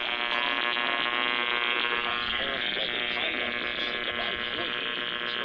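Emergency Alert System attention signal: the harsh two-tone buzz, held steady, heard off a radio broadcast during a monthly EAS test.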